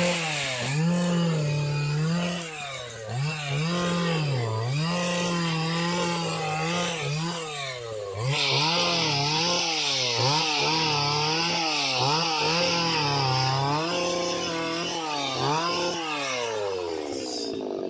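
Stihl engine of a Cantas motorized oil-palm pruner running and being revved up and down over and over. From about eight seconds a steady hiss joins it, dying away near the end.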